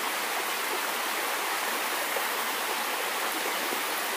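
Shallow stream running over mossy rocks: a steady rush of flowing water.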